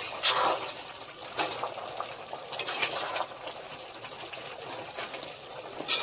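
Food sizzling and bubbling in a pot on a wood-fired chulha while it is stirred with a ladle, which knocks and scrapes against the pot a few times.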